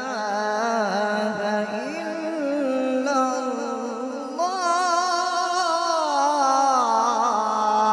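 A man reciting the Quran in the melodic tajweed style, drawing out one long ornamented phrase with a wavering pitch. It grows louder about four and a half seconds in.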